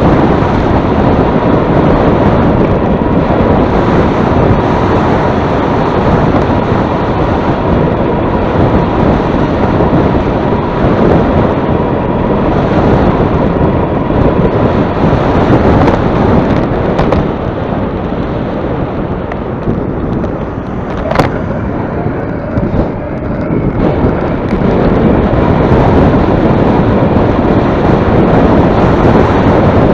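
Loud, constant wind buffeting on the microphone, the rumble of riding into a headwind, with a faint steady whine in the first half and a single sharp click about two-thirds of the way through.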